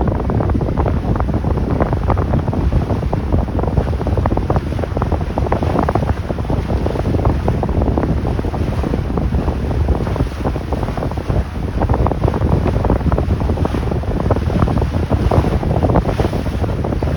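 Wind buffeting the microphone on a moving boat: a steady, loud low rumble of wind and water noise with no letup.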